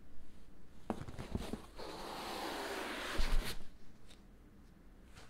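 Cardboard packaging being handled: a few light knocks, then about a second and a half of scraping and rubbing as a hardcover book is slid out of its foam-lined cardboard box, with a dull bump near the end.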